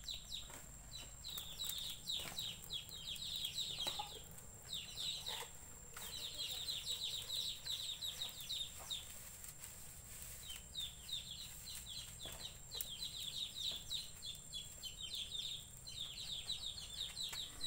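Birds chirping in quick runs of short, high, falling notes, starting and stopping again and again, with a few faint clicks.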